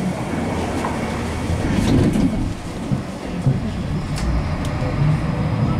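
71-931M Vityaz-Moskva tram heard from aboard as it runs: a steady low rumble from the running gear, with a couple of sharp clicks about four seconds in. A faint high steady tone comes in near the end.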